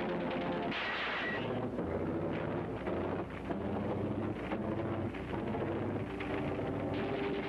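Old 1940s film soundtrack of rumbling, crackling battle noise, with low held orchestral notes changing pitch beneath it. A brief hissing burst comes about a second in.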